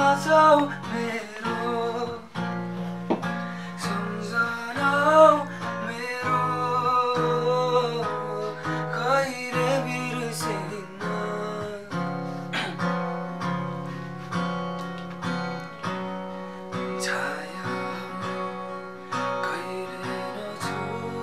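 Acoustic guitar strummed in chords, with a man singing over it, the voice mostly in the first half.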